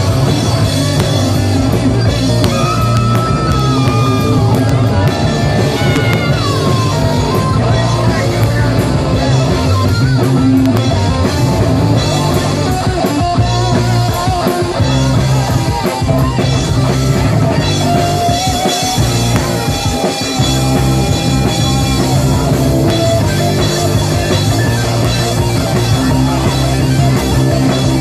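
Live rock band playing loud, with electric guitar melody lines over drums.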